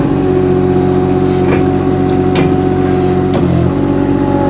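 MultiOne mini loader's engine running steadily at low revs, with a steady whine from its hydraulic pump and a few short hisses; the low engine note shifts briefly about three and a half seconds in.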